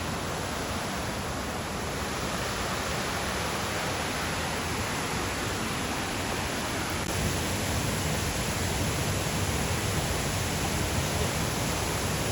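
Steady rushing roar of a waterfall, a little louder from about seven seconds in.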